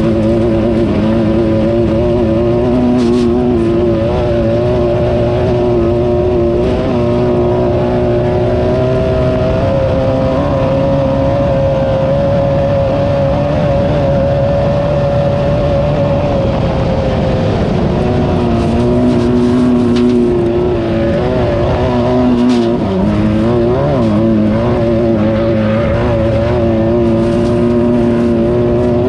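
Class 9 off-road race car's engine running hard at sustained revs, its pitch wavering with the throttle and dipping sharply once about two-thirds of the way through. A few short knocks from the car over rough ground.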